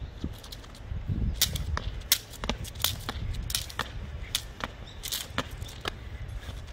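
Plastic beaded jump rope slapping the brick paving as a child skips: sharp clacks about twice a second, over a low rumble.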